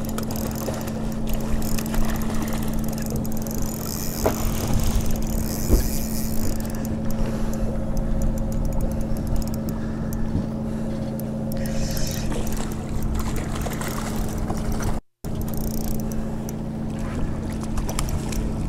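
Fishing boat's engine running steadily, a low hum with a steady tone. The sound cuts out completely for a moment about fifteen seconds in.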